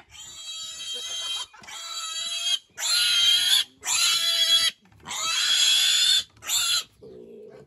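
A six-week-old piglet squealing loudly while it is held and carried by hand: about six long, high, shrill squeals in a row with short breaths between them, dying away near the end.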